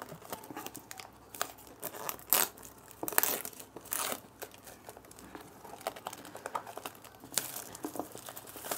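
Packaging on a new phone's retail box being torn open by hand: irregular crinkling and crackling with short tearing rustles, denser near the end.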